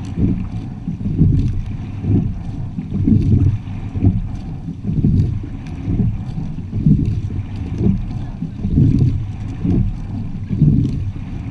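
Rowing quad scull under way: a low rush of water and air past the bow that swells and fades in a steady rhythm about every two seconds, once per stroke, with faint light clicks.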